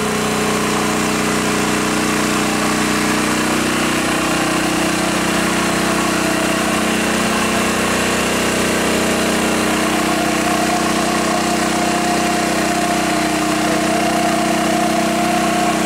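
Electric-start generator engine running steadily, a constant hum.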